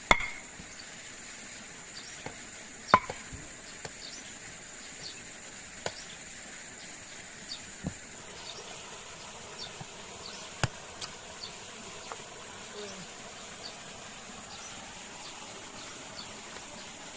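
Steady high-pitched drone of forest insects, with a few sharp knocks: one at the start, one about three seconds in and one about eleven seconds in.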